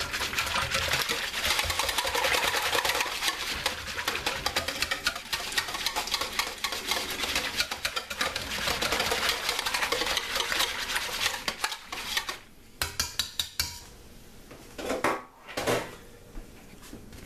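Wire whisk beating a milk mixture in a stainless steel bowl, its wires rapidly scraping and clinking against the metal. The whisking stops about twelve seconds in, followed by a few separate light clinks.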